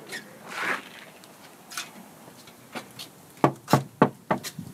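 Knocking on a house's front door: about five quick, sharp knocks about three and a half seconds in.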